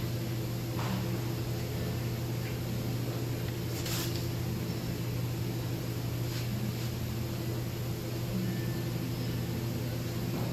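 Steady low mechanical hum, with a few faint clicks, the clearest about four seconds in.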